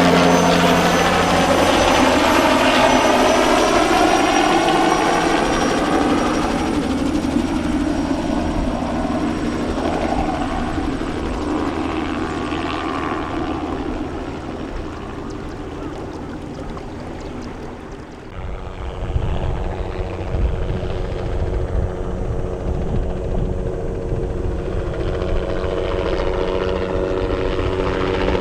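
Bell 206B-3 JetRanger III helicopter flying low: rotor and turbine sound sweeping past in pitch and fading away. About two-thirds of the way in it changes abruptly, then builds again as the helicopter comes back.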